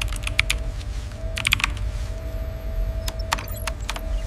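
Computer keyboard being typed on in short bursts of light clicks, over a steady low hum and a faint high tone that comes and goes.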